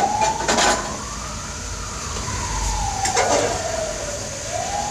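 A siren wailing in slow rises and falls in the background. Over it, a metal ladle and steel pots clatter at the start, about half a second in and a little after three seconds in.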